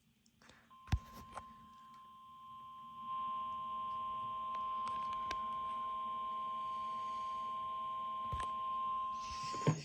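NOAA Weather Radio warning alarm tone: one steady, unbroken beep held for about nine seconds, which signals that a warning message follows. A few sharp clicks and a faint hiss sit under it.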